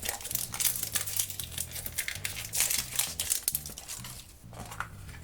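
Wrapper of a Shopkins surprise egg crinkling and tearing in irregular bursts as it is unwrapped by hand, with soft background music underneath.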